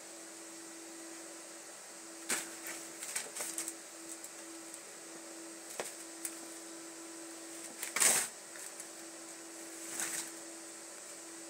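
A few light knocks and rustles from a kitten playing beside a plastic ball-track toy on carpet, the loudest a short scuffle about eight seconds in, over a steady hum.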